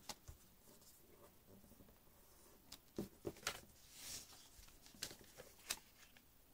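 Faint handling of a thin sheet of origami paper being creased and folded: soft rustles and several sharp clicks and taps, with a brief rustle about four seconds in as the sheet is turned over.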